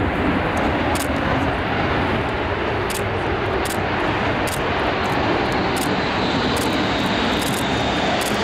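Saab 37 Viggen's single Volvo RM8 turbofan jet engine running loud and steady as the fighter rolls along the runway, kicking up dust.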